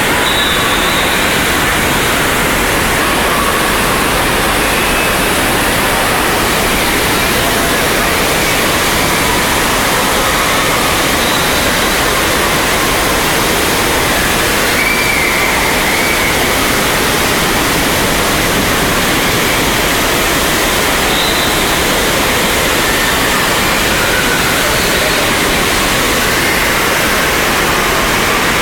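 Indoor surf-simulator wave: a sheet of water pumped up over the ride surface, making a loud, steady rush of water without a break.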